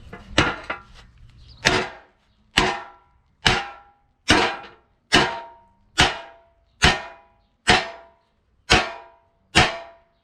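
Hammer blows on a steel truck bumper, about one a second, each a sharp clang with a short metallic ring: the dented bumper being beaten straight.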